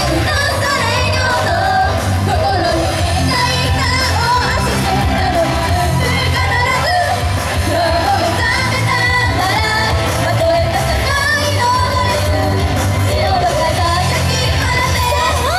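Japanese idol group singing a pop song live over a loud backing track with a steady bass beat.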